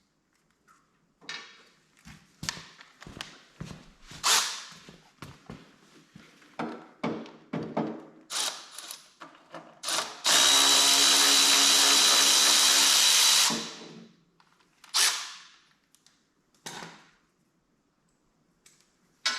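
A power tool runs steadily for about three seconds while it backs out an engine mounting bolt. Scattered short knocks and clicks of tools being handled come before and after it.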